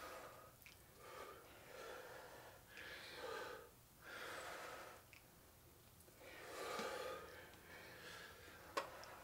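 Heavy breathing from exertion during dumbbell overhead presses: soft breaths coming every second or two. A single sharp click sounds near the end.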